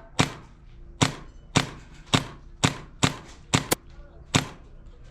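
KWA KZ 61 gas-blowback airsoft gun firing about nine single shots, unevenly spaced roughly half a second apart, with a quick pair a little past halfway.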